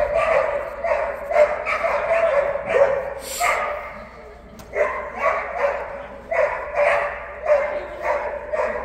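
A dog barking over and over, a few short barks a second, with a brief pause near the middle.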